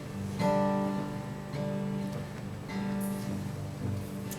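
Acoustic guitar strumming chords, about one strum a second, in an instrumental break of a folk song with no singing.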